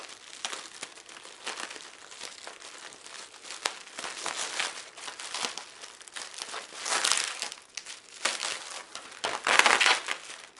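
Packaging crinkling and rustling in irregular bursts as a box is unpacked by hand, loudest about seven seconds in and again near the end.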